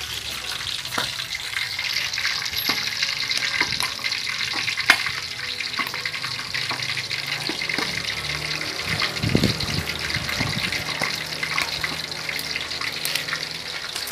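Pork belly slab deep-frying in very hot oil in an aluminium wok: a steady sizzling hiss with scattered crackles and spatters of oil, and one sharp pop about five seconds in.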